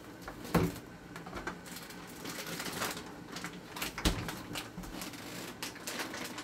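Hard plastic clicking, knocking and light rattling as the parts of a manual plunger-style vegetable chopper are handled and fitted together, with two louder knocks about half a second in and about four seconds in.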